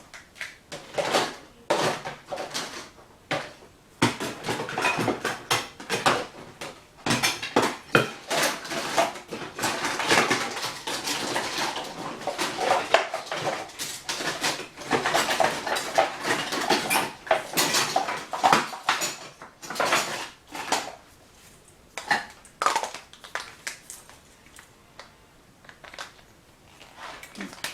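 Utensil clinking and scraping against a mixing bowl as the cake batter is blended by hand: rapid, irregular clicks that are busiest in the middle and thin out near the end.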